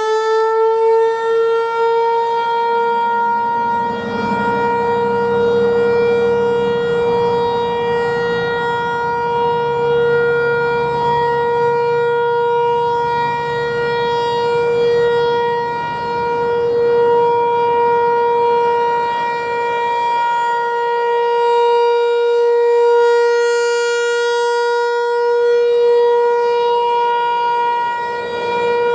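Outdoor warning siren sounding a steady tone during a test, a single held pitch with its overtones, its loudness swelling and fading slightly.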